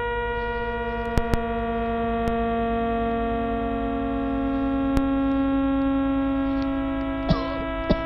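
Millisecond pulsars of the globular cluster 47 Tucanae turned into sound: their pulse rates heard together as a dense chord of many steady tones, a little out of tune, with a few sharp clicks.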